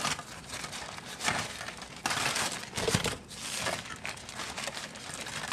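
Parchment paper and aluminium foil crinkling as they are peeled open by hand, in several irregular rustling bursts.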